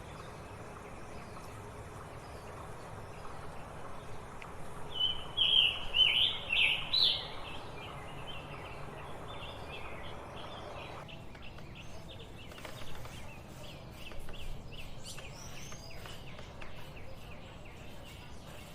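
Scarlet tanager singing: a loud, quick run of short phrases about five seconds in, followed by fainter scattered chirps, over a steady background hiss.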